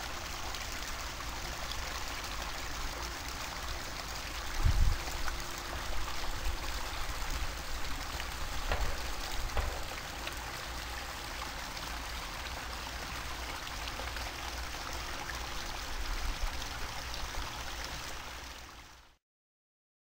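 Three-tier pond waterfall splashing and trickling steadily, with a few low bumps on the microphone. The sound cuts off near the end.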